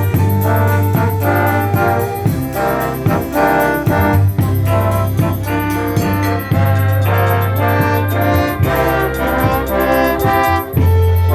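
Concert band playing, brass to the fore: trombones and trumpets over a sustained low bass line.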